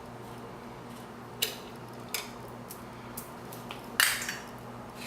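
Light metallic clicks and clinks of hand tools and metal parts during motorcycle brake caliper work, the loudest about four seconds in, over a steady low hum.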